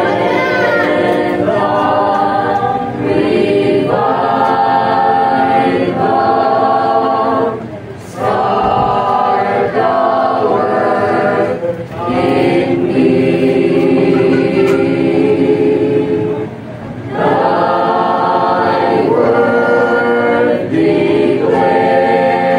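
Mixed church choir singing a hymn together, in long held phrases with a few brief breaks between them.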